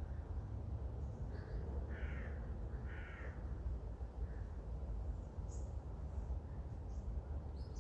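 Two short, harsh bird calls about a second apart, with faint high chirps of small birds scattered through, over a steady low rumble.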